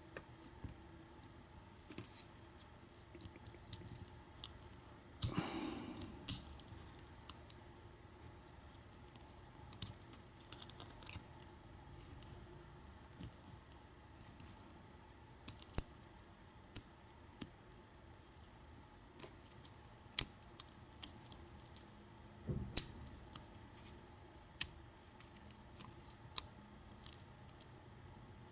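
Irregular faint metallic clicks and ticks from a lock pick and tension wrench working the pins of a challenge lock fitted with security pins. Two louder knocks come about five seconds in and again near the end from the lock being handled.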